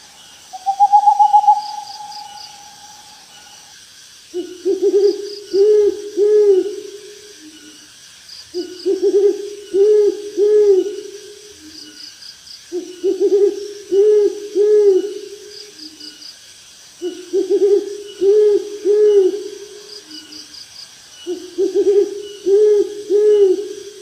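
Owl hooting: a phrase of about three quick hoots, repeated five times roughly every four seconds, over a steady night chorus of insects with faint pulsing chirps up high. A single held whistled note sounds in the first few seconds.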